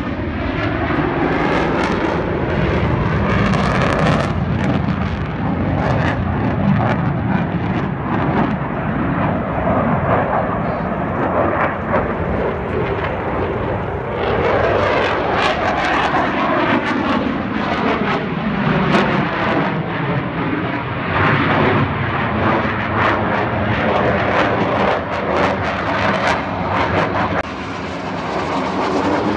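Military jet aircraft flying past overhead: loud, continuous jet engine noise with sweeping tones that rise and fall as the aircraft moves across the sky.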